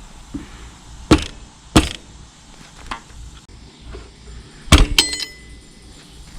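Hammer striking metal: four sharp blows, two about a second in and a quick pair near five seconds in, the last ones leaving a brief metallic ring.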